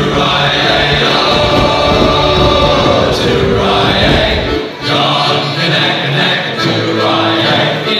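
Music with a choir singing. A low rumble under it drops out about halfway through.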